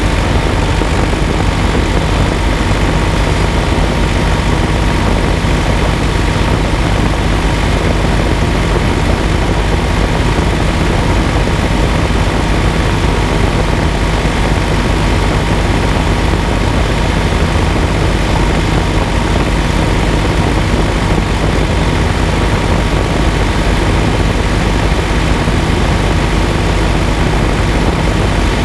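John Deere tractor's diesel engine running steadily at an even speed as the tractor drives over grass.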